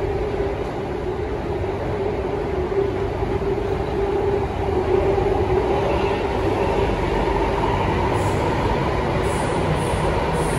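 Inside a Singapore MRT Circle Line train running through a tunnel: a steady rumble of wheels on rail with a motor whine that shifts higher about halfway through.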